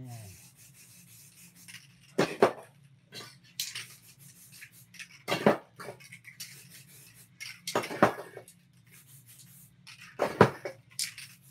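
Spray-paint cans clanking sharply about four times, a couple of seconds apart, with short faint hisses of aerosol spraying between them as colours are changed.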